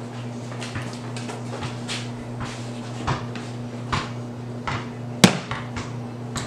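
A textured clay slab tossed and slapped down onto a work table again and again to stretch it thinner: a dull slap about once a second, with one sharper knock about five seconds in. A steady low hum runs underneath.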